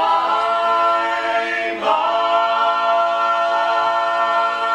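Barbershop quartet singing a cappella, four voices holding a sustained chord, then moving to a new chord about two seconds in and holding it as the song's closing chord.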